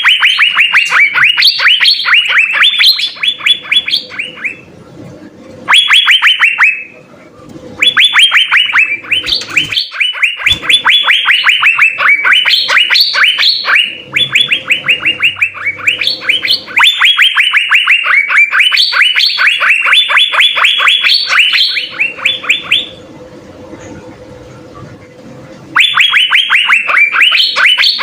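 Cucak biru (Asian fairy-bluebird) singing: long, loud phrases of rapid, sharp downward-sweeping chattering notes, several to the second, broken by short pauses.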